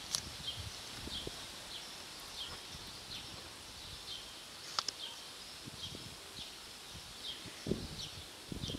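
A cat chewing food with soft, irregular crunches, most frequent near the end. Behind it a short high chirp repeats about every half-second.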